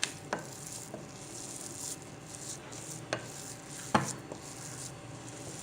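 A spoon stirring and scooping freshly cooked venpongal in a dish, with soft scraping and three light clicks of the spoon against the dish.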